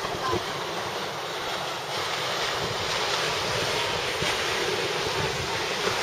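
Ocean surf breaking and washing up the beach, mixed with wind buffeting the microphone; the noise gets a little louder about two seconds in.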